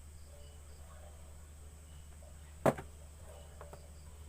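Steady low hum with faint, short high chirps, and one sharp click about two and a half seconds in.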